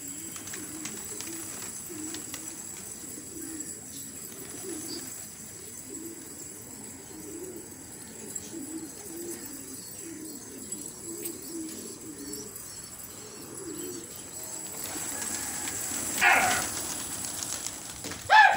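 A flock of domestic pigeons cooing, a low repeating coo throughout. Near the end two short, loud, higher-pitched cries cut in, about two seconds apart.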